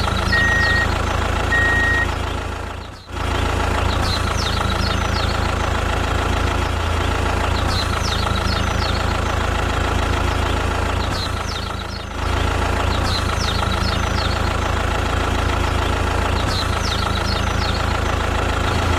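An engine running steadily at an even speed, with two brief drops in level, about 3 s in and again about 12 s in.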